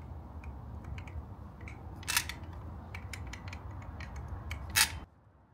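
Caulking gun clicking as its trigger is squeezed to press out silicone, with two louder clicks, one about two seconds in and one near the end, over a steady low rumble.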